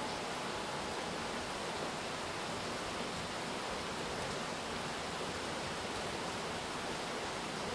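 Steady rain falling: an even hiss, with no separate drops standing out and no change in strength.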